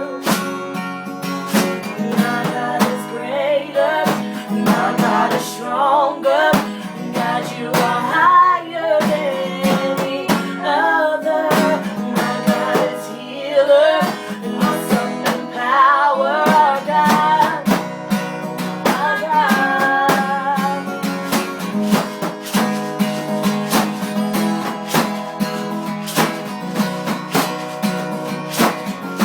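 Acoustic guitar strummed steadily with a voice singing a melody over it; the singing stops a little past two-thirds of the way in and the guitar strumming carries on alone.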